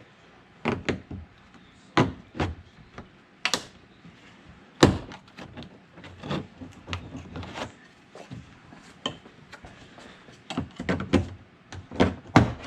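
Plastic trim pry tools working around the edge of a pickup truck's interior door panel: irregular sharp clicks and knocks of plastic against the door as the panel's retaining clips are worked loose, a few strikes much louder than the rest.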